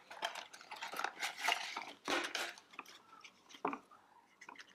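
Handling noise from unpacking drone accessories: a run of short clicks, taps and rustles as small plastic parts and a fabric shoulder bag are moved about.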